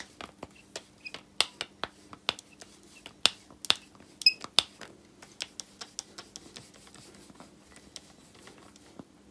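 Irregular light clicks and clinks of a steel lathe spindle being handled and wiped with a cloth to remove excess engineer's blue. The clicks are busiest in the first five seconds, over a faint steady hum.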